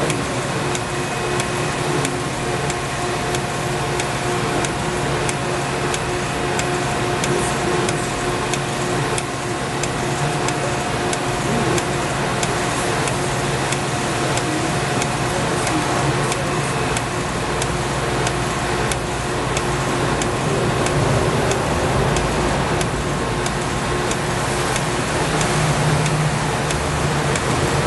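Pneumatic wire-rope lubricator in operation, with the steel wire rope running through its grease housing: a steady mechanical hum with several held tones and a continuous fine ticking.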